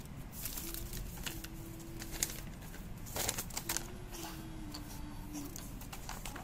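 Hands rustling and handling paper and small items on a wooden tabletop, with scattered taps and crinkles. A faint held hum-like tone sounds twice in the background, the second one dropping in pitch.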